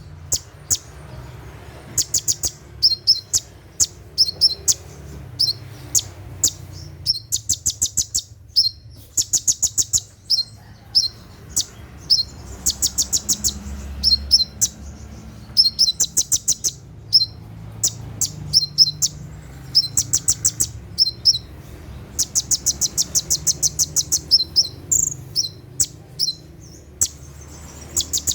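Olive-backed sunbird (konin, kolibri ninja) singing its rapid 'tembakan' bursts: fast trains of sharp, high notes about a second long, repeated every second or two, over a low steady hum.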